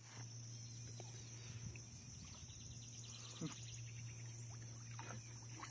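Quiet outdoor ambience at the water's edge: a steady low hum and a steady high-pitched hiss, with a faint short falling call about three and a half seconds in.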